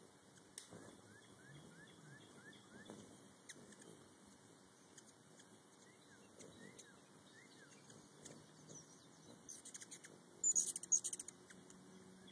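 Hummingbirds at a feeder: a brief burst of sharp, high chittering chirps about ten seconds in, then a low wing hum near the end. A faint run of short rising chirps is heard in the first few seconds.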